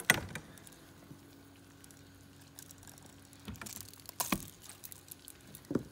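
Scattered sharp knocks and bumps, the loudest right at the start, with water splashing and dripping as a long-handled dip net is worked at the surface.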